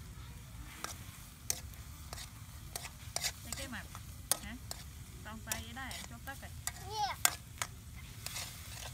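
A metal spoon stirring food in a steel wok over a wood fire, with frequent sharp clinks and scrapes of the spoon against the pan over a low frying sizzle.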